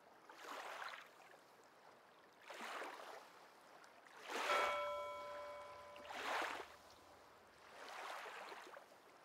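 Small waves lapping, a soft swash about every two seconds. A brief steady tone with overtones sounds in the middle.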